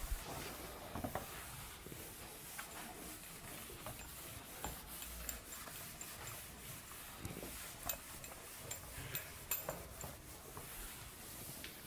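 A cloth rubbing across a whiteboard as it is wiped clean, a faint scrubbing with scattered small ticks and taps.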